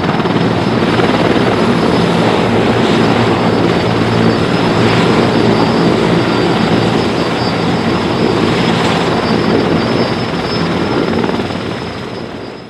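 Sikorsky S-64E Skycrane heavy-lift helicopter running on the ground, its twin turbine engines and six-blade main rotor giving a loud, steady chopping rumble with a thin high turbine whine. The sound fades away at the end.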